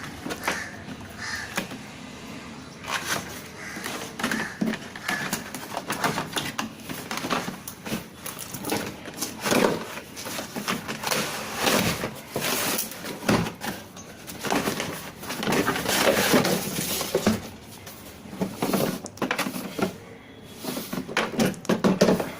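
A cardboard product box being handled: irregular rustling, scraping and light knocks as it is turned over and worked at.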